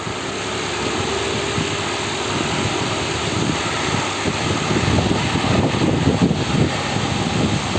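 Two-blade farata (high-speed stand) fan running, giving only the steady rush of air from its blades: the rattle from its loose shaft seat is gone after the seat was tightened by punching.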